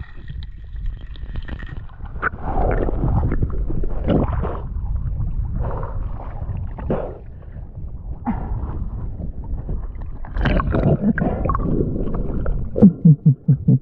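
Water gurgling and sloshing around an underwater spearfishing camera in irregular surges, with a quick run of about five low bubbly pulses near the end.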